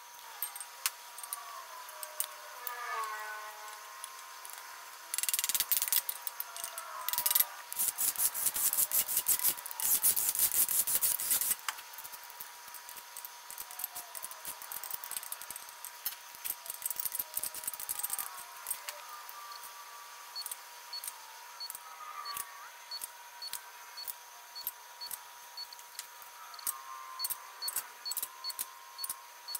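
Ratcheting torque wrench clicking rapidly for several seconds as the main cap bolts on an LS7 engine block are run down and torqued to final spec. After that come sparser, lighter ratchet clicks.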